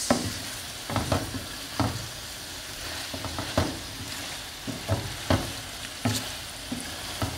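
Egg sauce of eggs, tomatoes, fish and onions sizzling steadily in groundnut oil in a frying pan. A spatula stirs it, scraping and knocking against the pan about once a second at an uneven pace.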